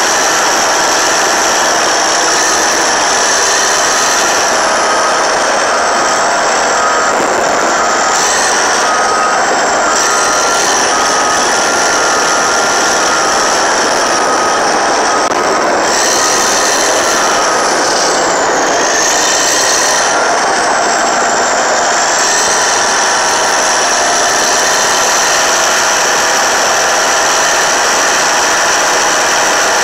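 Caterpillar D8T bulldozer's C15 ACERT diesel engine running under load as the dozer pushes soil and brush, loud and steady.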